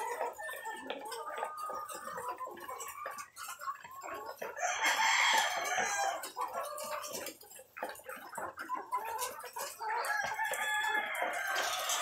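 A flock of caged white laying hens clucking and calling continuously, with two louder, drawn-out calls, one about four seconds in and another near the end.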